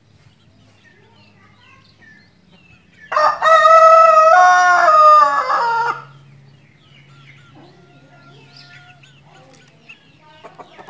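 Rooster crowing once: one long crow of about three seconds, starting about three seconds in, its pitch dropping at the end.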